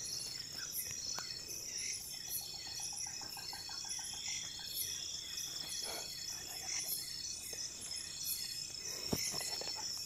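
Night insect chorus: crickets trilling in steady, repeating high-pitched pulses, with a lower rapid trill joining a few seconds in and a few faint knocks of movement.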